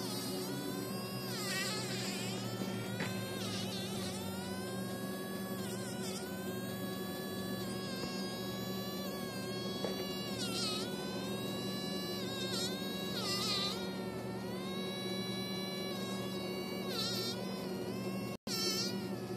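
A fly caught in a spider's web buzzing almost without a break, its pitch wavering and dipping again and again as it struggles. The buzz cuts out for an instant near the end.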